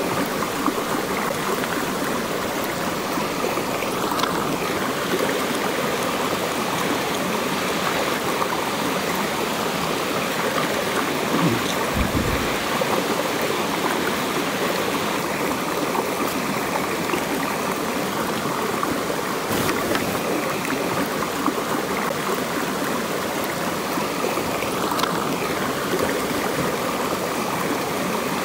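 Rocky stream rushing steadily, with a single low thump about twelve seconds in.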